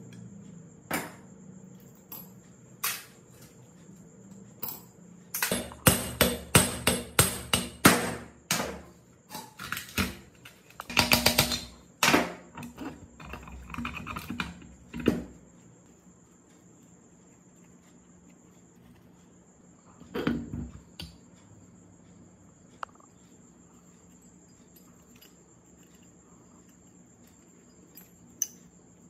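Irregular knocks and taps of hand tools and metal pump parts being worked on: scattered single knocks, then a dense run of quick taps and clatter for about ten seconds, and a brief burst a little after that. A faint steady high-pitched tone runs underneath.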